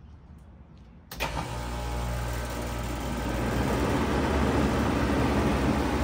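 2016 Bard 4-ton wall-hung heat pump starting up in heat mode: a sudden clunk about a second in as it kicks on, then a machine hum and fan rush that grow louder over the next few seconds and settle into a steady run.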